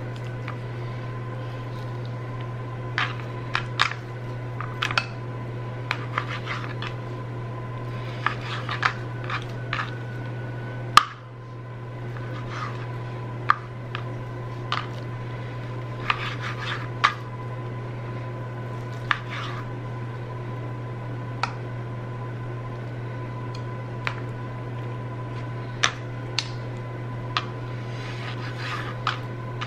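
Chef's knife slicing raw pork tenderloin on a plastic cutting board: irregular taps and clicks of the blade meeting the board, with one sharper knock about eleven seconds in, over a steady low hum.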